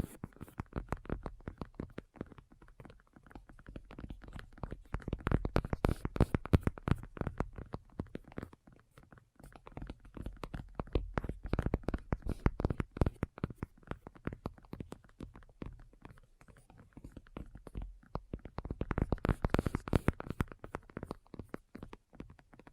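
Fingernails tapping rapidly in a continuous flurry of small clicks, swelling louder and fading again in waves a few seconds long.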